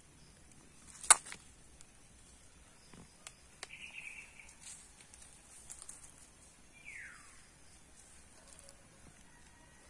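Light rustling and small clicks of animals moving over dry leaf litter, with one sharp loud click about a second in. A domestic cat gives a short falling mew about seven seconds in.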